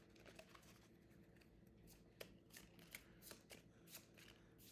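Faint, scattered taps and flicks of playing cards being handled and laid down on a table, about a dozen light clicks.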